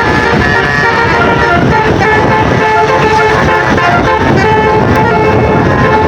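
Basuri telolet horn on a bus playing a tune: a quick run of short, steady horn notes stepping up and down in pitch.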